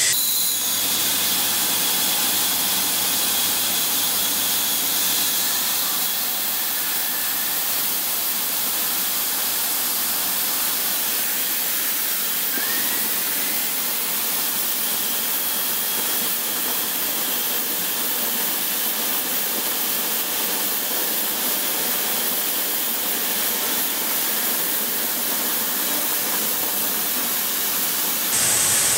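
Pressurised steam venting in a steady, loud hiss from a steam-curing lightweight concrete block moulding machine.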